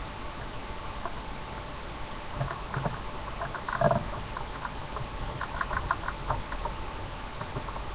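Small pet rat's claws pattering and scratching in light clicks, in two spells, with a louder knock about four seconds in.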